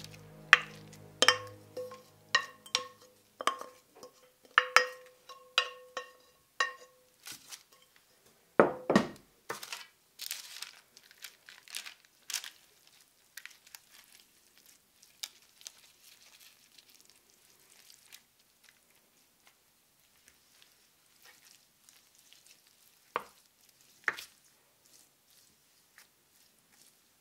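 Wooden spoon scraping a grated zucchini mixture out of a glass bowl, with a run of sharp taps against the glass that ring briefly over the first several seconds. A dull thump comes about nine seconds in, followed by soft scraping and patting as the mixture is spread on a parchment-lined baking tray, with two more taps near the end.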